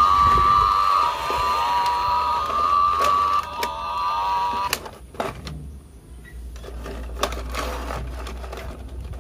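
Battery-operated toy cows' electronic sound chip giving a steady, slightly wavering tone that cuts off suddenly about halfway through. After it come scattered plastic clicks and knocks as the toys are handled.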